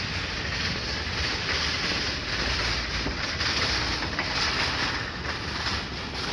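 Wind buffeting the microphone outdoors, a steady low rumble with a hiss over it.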